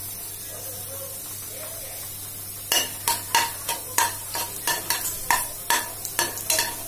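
Whole spices sizzling quietly in hot oil and ghee in an aluminium pressure cooker. From a little under three seconds in, a metal ladle stirs them, clicking and scraping against the pot about three times a second with a light ring.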